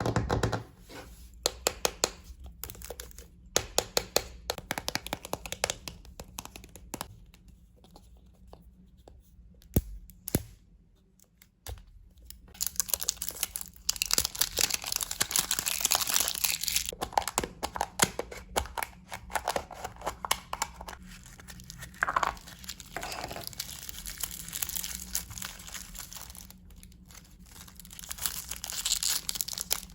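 Close-up crinkling and tearing of the wrappers as Kinder Surprise eggs and their toys are unwrapped. It opens with a quick run of sharp clicks and taps, goes quiet for a few seconds, then turns to dense, steady crinkling from about halfway.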